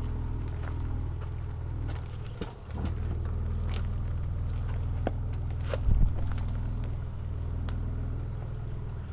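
Ford Ranger Raptor pickup engine running steadily at low revs as the truck crawls over a rocky, rutted dirt trail, with stones clicking and crunching under the tyres and a loud knock about six seconds in.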